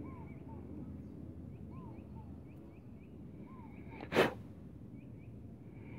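Small birds chirping faintly over steady low background noise, with one short, sharp burst of breath from a person about four seconds in.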